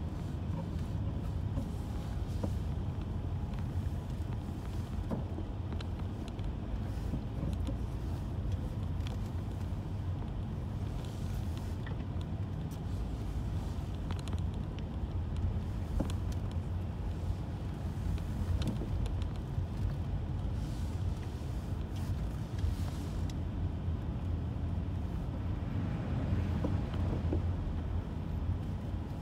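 Steady low rumble of a car driving, engine and tyre noise, with a few faint light clicks.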